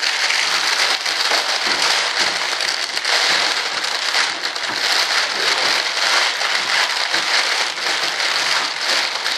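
Clear plastic vacuum-bagging film crinkling and rustling as it is handled and pulled off a freshly cured composite aileron. The dense crackle goes on without a break.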